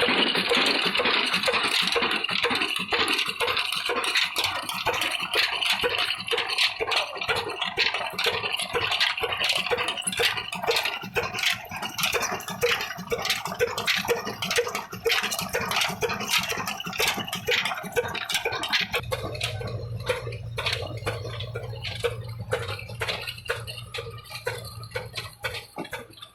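Old stationary diesel engine running with an even, rhythmic knocking several beats a second. It begins under a loud hiss that fades over the first seconds, and a low steady hum joins about two-thirds of the way through.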